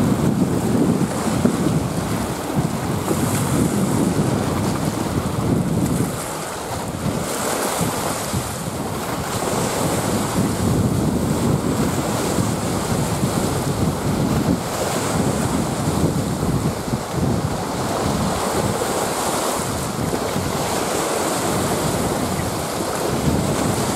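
Lake waves washing against driftwood and the flooded shoreline in uneven surges, with wind rumbling on the microphone.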